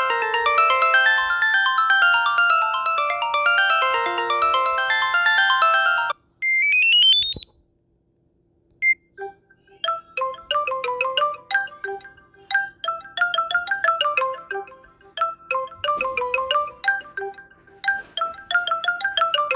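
Samsung Galaxy S25 ringtones playing on a Samsung Galaxy A54 phone. A fast tune of many quick notes cuts off about six seconds in. A quick rising run of notes follows, then a short pause, and another ringtone begins with a short tune that repeats.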